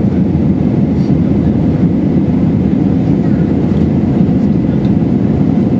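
Steady low roar of an Airbus A320 in flight, heard inside the passenger cabin: engine and airflow noise with no change in pitch or level.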